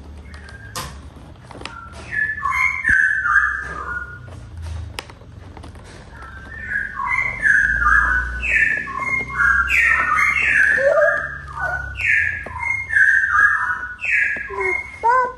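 Whistling: a run of short whistled notes, many sliding downward in pitch, in two stretches, the second louder and longer.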